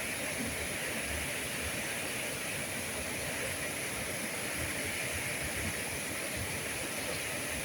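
Water pouring over a river weir, a steady rushing with no change in level.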